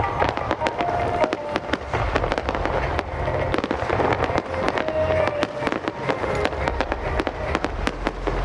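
Fireworks display: many sharp pops and bangs going off irregularly in quick succession, over a low rumble.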